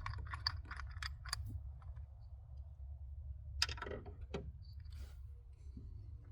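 Handling noise of small light clicks and taps, with a sharper knock about three and a half seconds in and another soon after, over a steady low hum.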